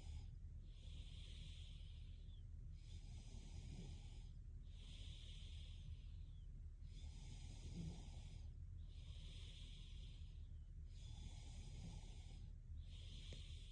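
A sleeping woman breathing slowly and evenly, a soft airy hiss on each breath in and out, alternating about every second, with little snore rumble. A faint steady low hum runs underneath.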